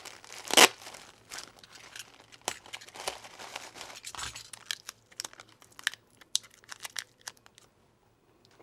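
Packaging being handled: crinkling and rustling of wrapping and tape around a parcel, with one sharp rasp about half a second in and scattered small rustles and clicks after it.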